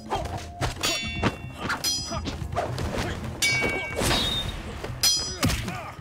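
Blades clashing in a staged sword fight: about four sharp metallic clangs, each ringing briefly, mixed with heavy thuds.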